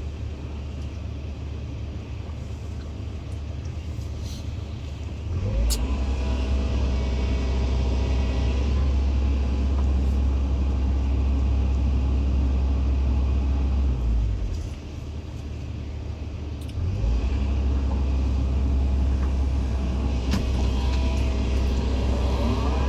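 Hydraulic excavator's diesel engine running, stepping up to a louder, working pace about five seconds in, easing off briefly past the middle, then loud again. A rising whine near the end.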